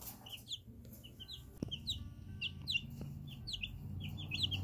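A brood of young chicks peeping: many short, high chirps that slide downward, several a second, growing busier toward the end.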